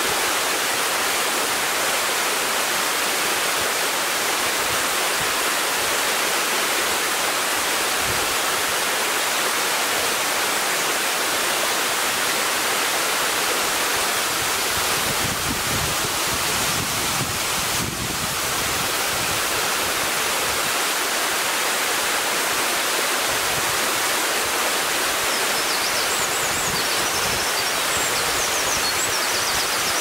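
Twin waterfall, two streams falling down a steep rock face into one plunge pool: a steady, unbroken rush of falling water.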